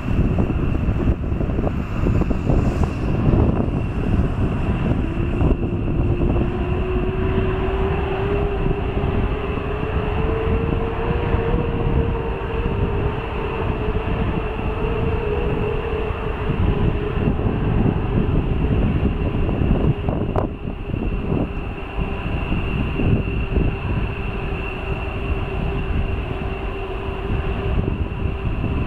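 Airbus A330's Rolls-Royce Trent 700 turbofans running at taxi power: a steady heavy rumble with a constant high whine, and a lower hum that comes in about five seconds in, rises slightly in pitch, then settles.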